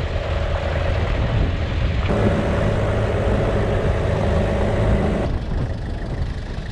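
Four-wheel-drive vehicle's engine running with tyre noise on a gravel track, a steady low rumble. The sound changes abruptly about two seconds in and again about five seconds in, where the footage is cut.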